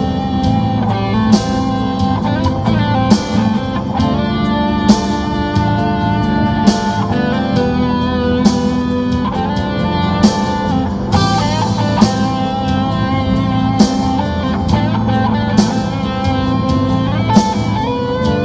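Guitar-led music with a steady drum beat, a loud accent about every two seconds.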